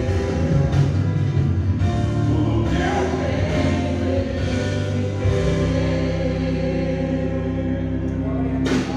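Gospel worship music: voices singing over instrumental accompaniment. In the second half a chord is held long, and it breaks off suddenly near the end.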